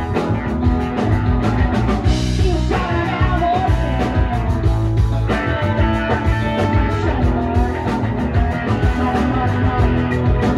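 Live band playing a rock song: drum kit, electric bass, acoustic guitar and electric guitar, with a singer.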